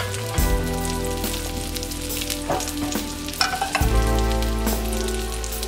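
Panko-crusted halibut fillets sizzling and crackling as they pan-fry in oil, under steady background music. About three and a half seconds in, a second pan is set down on the gas stove's grate with a brief knock.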